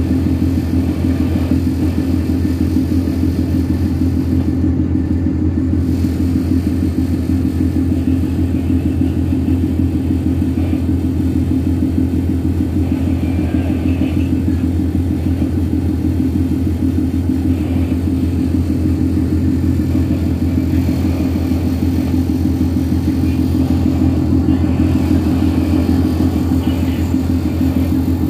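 Steady low drone of a tugboat's diesel engines, heard from on deck while under way.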